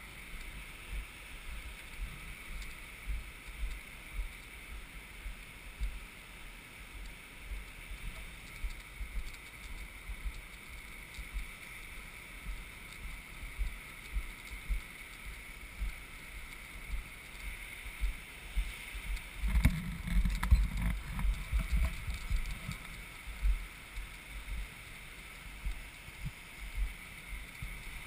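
Wind buffeting the microphone of a camera moving along the beach: an irregular low rumble of thumps over a steady hiss, with a louder stretch of jolts and rattles about twenty seconds in.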